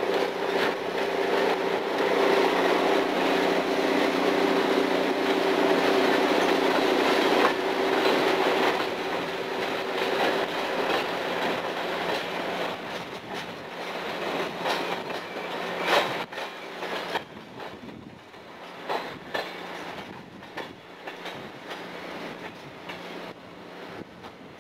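Diesel-hauled passenger train passing close by: a loud rush of locomotive and wheel noise with a steady humming tone for the first ten seconds or so, then the rumble and clatter of the passing cars, fading as the train draws away in the last several seconds.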